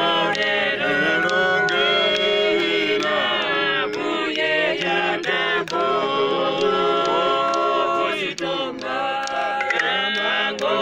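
A group of people singing a hymn together, several voices at different pitches sounding at once.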